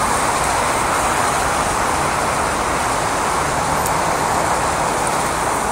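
Steady city street traffic noise: a continuous even rush with no single vehicle standing out.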